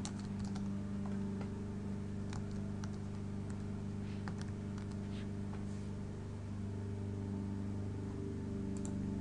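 Scattered keystrokes on a computer keyboard, a few light clicks at a time, over a steady low hum.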